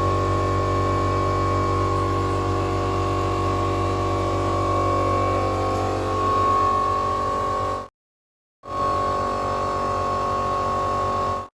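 KTG-10 siren sounding during a test, a loud steady tone made of several pitches at once, manually triggered from its control cabinet. The sound cuts out completely for under a second about eight seconds in, and again at the very end.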